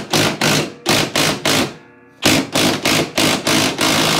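Clarke brushless cordless impact gun hammering in a rapid series of short bursts, about three a second, with a short pause about two seconds in. It is undoing a heat-loosened engine mounting bolt, which is nearly off.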